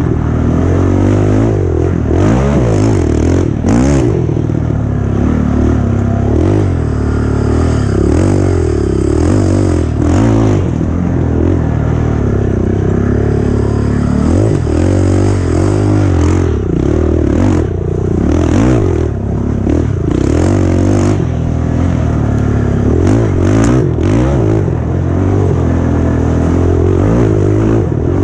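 Off-road race engine run hard, revving up and down continually with throttle and gear changes, and scattered knocks and clatter from the machine over rough ground.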